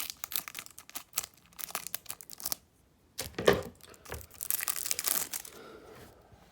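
Foil wrapper of a trading-card pack being torn open and crinkled, in bursts of crackling, with a single thump about halfway through.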